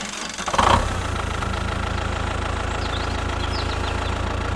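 Tractor engine coming in about half a second in, then idling steadily with a low, even hum.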